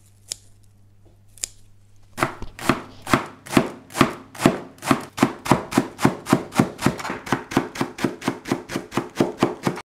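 Chinese cleaver chopping garlic chives on a plastic cutting board: two light knocks, then from about two seconds in a steady run of chops that speeds up from about two to about four a second.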